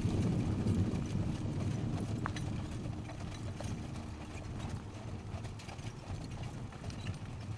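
Hoofbeats of a four-in-hand team of German Riding Ponies trotting on arena sand, over a low rumble, slowly growing fainter.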